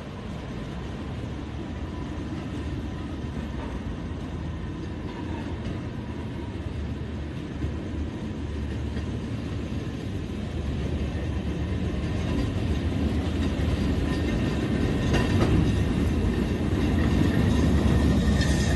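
Railroad speeders (small rail motorcars) running along the track and approaching, their engines and rolling wheels growing steadily louder.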